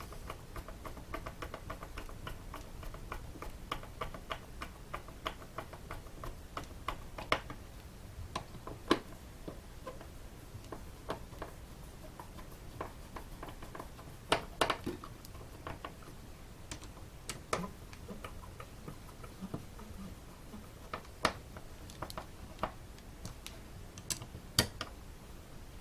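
Small screwdriver driving the bottom-cover screws into an Intel NUC mini PC's case: a run of small, irregular clicks and ticks, with a few sharper clicks now and then.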